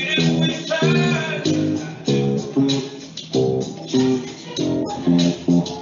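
Electric bass guitar playing a line of plucked notes, several a second in a steady rhythm.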